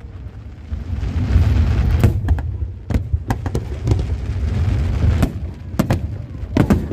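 Aerial fireworks going off: a run of sharp bangs, about ten, over a continuous low rumble of booms.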